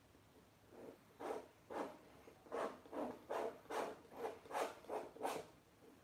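Palette knife scraping acrylic paint across a canvas in a run of short strokes, about eleven of them, quickening to two or three a second after the first couple of seconds.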